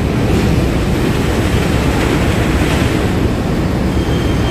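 Steady loud rumble on a ferry's vehicle deck: the ship's engines running, heavy in the low end. A faint thin high whine comes in near the end.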